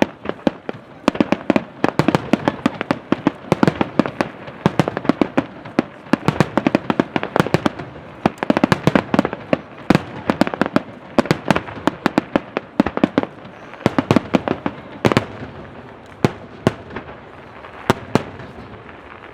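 Starmine fireworks barrage: aerial shells firing and bursting in rapid, overlapping succession, many sharp bangs a second. Near the end the bursts thin out to a few single bangs.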